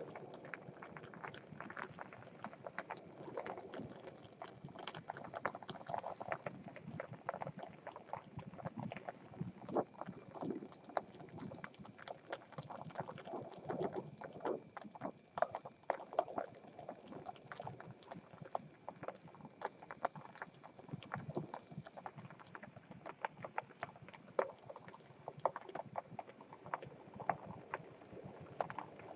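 Gas torch flame playing on a plastic yogurt cup, with irregular crackling and popping as the plastic chars and melts and the yogurt inside bubbles.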